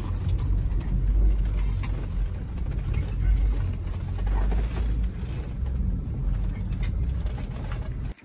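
Inside the cabin of a lifted four-wheel-drive van on oversized tyres driving over deep snow: a steady low rumble of engine and tyres, with the cabin rattling and creaking over the bumps. It cuts off abruptly near the end.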